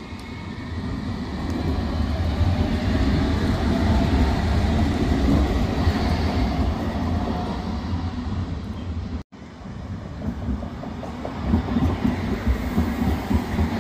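City tram passing close by: a low rumble of wheels on rail and running gear that builds over the first couple of seconds as it draws level and holds steady. After a brief break, another tram passes with a faster clatter of wheels over the rail joints.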